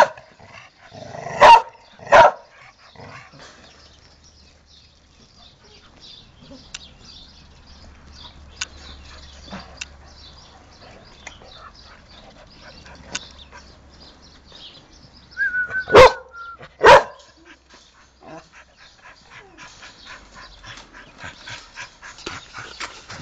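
American Pit Bull Terrier barking: three loud barks in the first couple of seconds, then a quiet stretch, then two more loud barks about a second apart roughly two-thirds of the way through.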